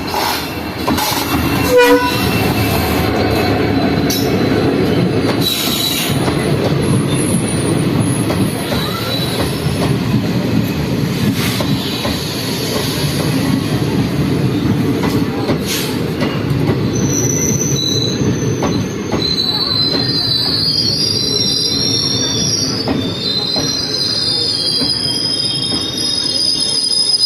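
Express passenger train rolling through a station, its coaches making a steady low rumble, with a short horn note about two seconds in. From about two-thirds of the way through, the wheels squeal on the rails in several high, shifting tones.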